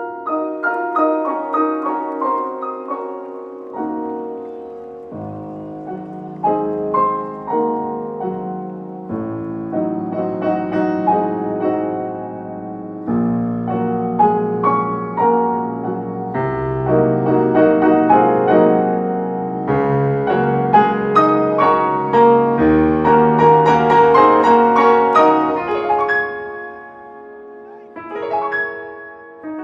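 Background piano music, with a melody over sustained chords that grows fuller and louder towards the last third, then thins out near the end.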